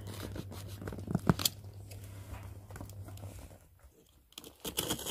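A blunt blade cutting and tearing through the tape and cardboard of a parcel box, in a run of short rasps and clicks with a sharper snap about a second in.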